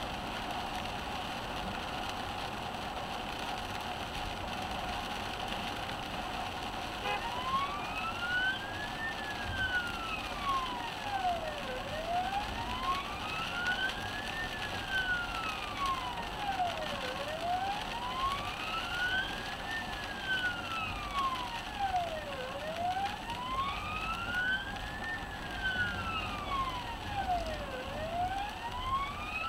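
Emergency vehicle siren switched on about seven seconds in, sounding a slow wail that rises and falls about every five seconds, heard from inside the ambulance response car over steady road and rain noise.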